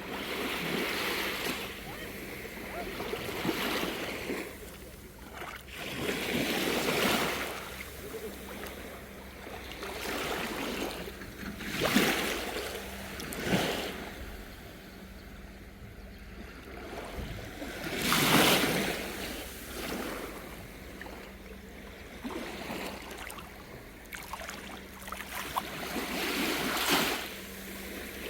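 Calm sea water washing and splashing in gentle swells that rise and fall every few seconds, over a steady low hum.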